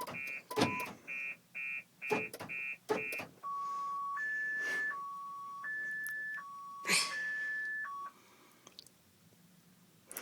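Car alarm going off again, cycling through its tones: a fast run of short high beeps, then a two-tone high-low wail, which cuts off about 8 seconds in. A few short knocks sound over it.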